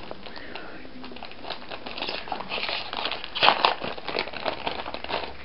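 Foil blind-bag packet crinkling as it is handled and opened: a run of small crackles, loudest about three and a half seconds in.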